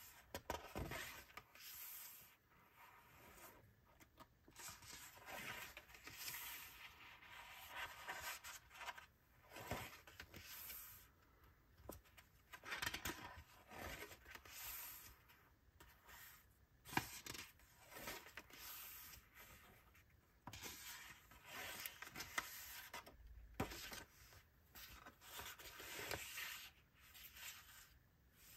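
Sketchbook pages being turned and handled: paper rustling and swishing in irregular short bursts every second or two, with a few sharper taps.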